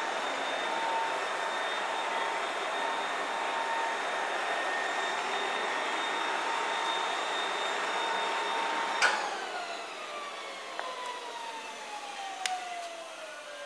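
Nilfisk UHB 51-1500 high-speed floor burnisher running with a steady whine. About two-thirds of the way through there is a sharp click as it is switched off, and the whine falls steadily in pitch as the pad winds down.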